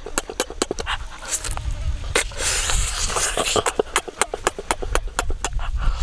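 Close-up mouth sounds of a person chewing roasted eel: quick wet lip-smacking clicks, several a second, with a breathy rush of air about two and a half seconds in.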